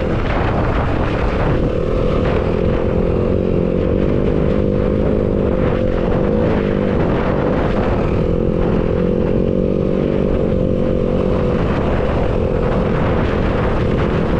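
Yamaha WR250F dirt bike's four-stroke single-cylinder engine running under way, its pitch drifting gently up and down with the throttle.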